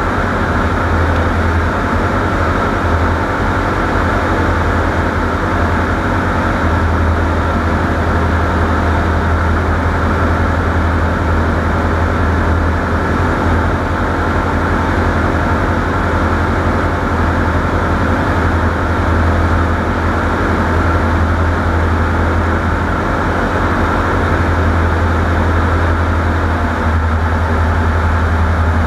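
Steady low drone of a vehicle running, its deep hum holding even with no clear change.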